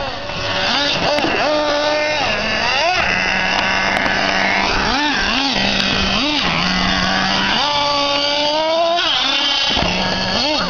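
Revo RC monster truck's small nitro engine, revving up and falling back again and again as the truck is driven, settling briefly to a steady lower note between the revs.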